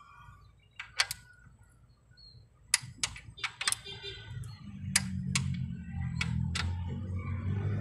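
Sharp metallic clicks of a socket wrench tightening camshaft bearing cap bolts on a cylinder head, coming singly and in small clusters. A low steady hum joins from about five seconds in.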